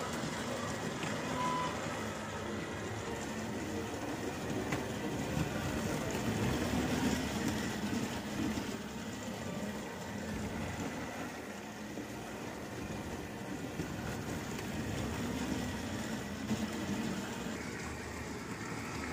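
Battery-powered plastic toy train running steadily around plastic track: its small electric motor whirring and its wheels rattling over the track joints.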